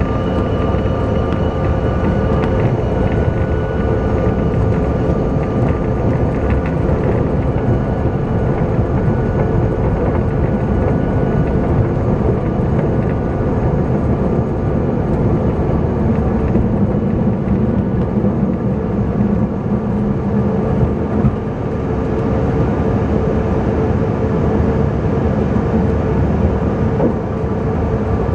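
Cabin noise of a Bombardier CRJ900 regional jet at takeoff thrust, heard from a window seat: a steady low rumble with several steady whining tones from its two rear-mounted GE CF34 turbofans, running through the takeoff roll, liftoff and initial climb.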